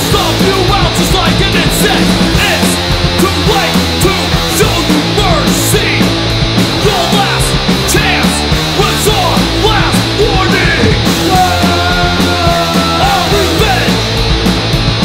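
Loud oi!/skinhead hardcore punk recording with electric guitar, bass and drums playing without a break.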